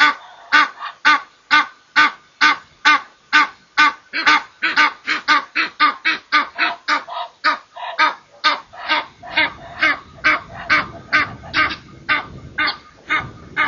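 Egyptian geese honking in a long, rapid series of hoarse calls, about three a second. A low rumbling noise joins underneath from about nine seconds in.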